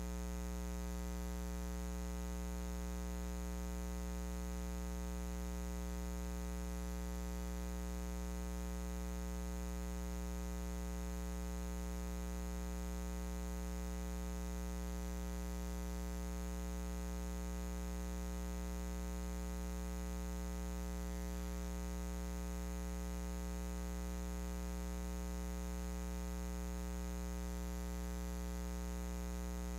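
Steady electrical mains hum: a low, unchanging buzz with fainter higher tones stacked above it and a light hiss.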